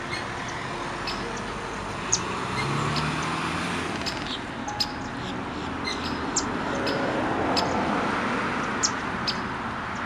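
Steady hum of road traffic with short, high chirps of small birds scattered through it, about a dozen in all.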